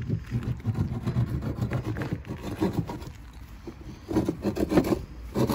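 Hand saw cutting a plywood board in quick back-and-forth strokes, easing off briefly in the middle.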